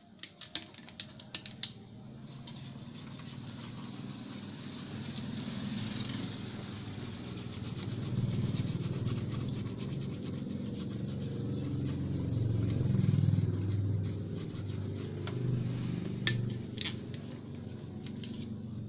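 A brush rubbing and scraping over the solder side of a TV circuit board, cleaning off flux after resoldering, with a few sharp clicks near the start and near the end. Under it a low engine-like rumble swells and then eases off, loudest a little after the middle.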